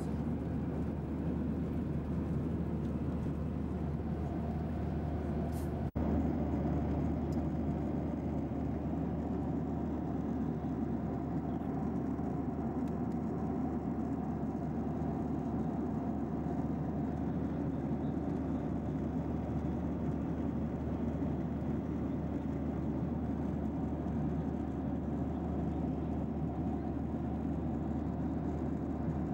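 Steady cabin roar of a Boeing 737-800 in cruise, the engines and rushing air heard from a passenger seat, with a brief dropout about six seconds in.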